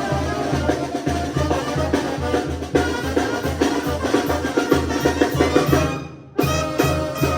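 Mexican banda music: a brass band with bass notes and drums on a steady beat of about two pulses a second. About six seconds in the sound drops away, then comes back with a short run of closing hits.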